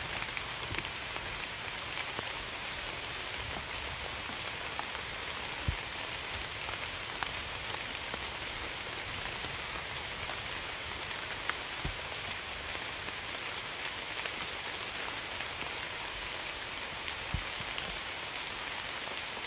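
Steady rainfall: an even hiss of rain with scattered louder individual drops ticking and occasional dull low drips landing close by.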